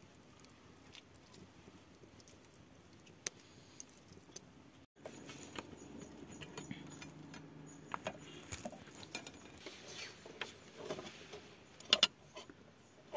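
Thin wire being twisted by hand around crossed steel rods to bind a roasting frame, making light metallic clinks and scraping. This starts about five seconds in, after a faint, quiet start, with two sharp clicks shortly before the end.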